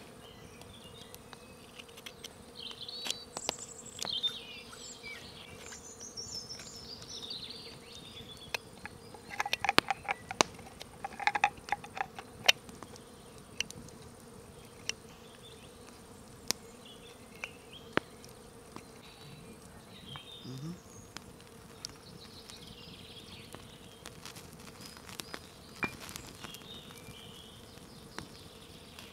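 A knife carving wood, giving short sharp clicks and scrapes, with a dense run of them about a third of the way in, over steady insect buzzing.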